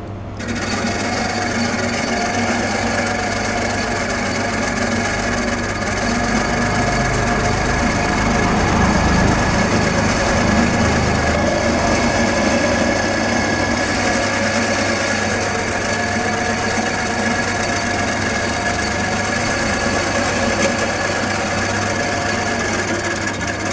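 A small 6V Meccano electric motor and its gearing running steadily as it drives a Meccano model tram along its track, a continuous whirring hum with a higher whine. It starts about half a second in.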